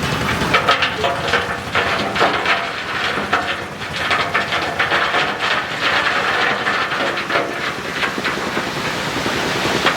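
Construction site work noise: a run of irregular knocks and clanks over a steady hiss, with a brief squeal in the first couple of seconds.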